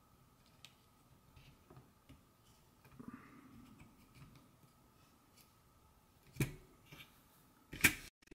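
Faint ticks and clicks of hands handling a plastic fletching jig and tightening a small screw into a vane arm. A sharper click comes about six seconds in, and the loudest, sharp click just before the end.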